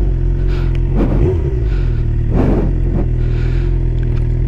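Suzuki GSX-R750 inline-four engine running steadily at low road speed, a constant low drone, with a few brief rushes of noise over it.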